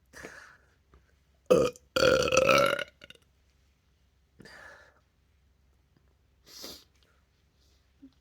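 A person burping: a short loud burp about a second and a half in, then a long, loud burp held at a steady low pitch for about a second. A few softer short sounds come before and after.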